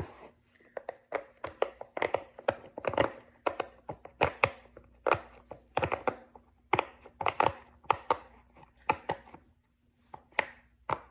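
Bubbles of a large silicone push-pop fidget (Pop It XL) being pressed one after another, giving a long irregular run of soft pops, about three a second, with a short pause near the end.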